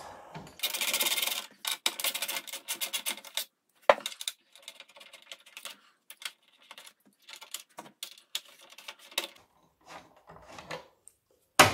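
A screwdriver scrapes and clicks against screws in the plastic panel of a BMW Z4 E89 wind deflector as the screws are backed out. Light clicks and rubbing follow as small trim parts are handled, with a sharp click about four seconds in and a louder snap near the end.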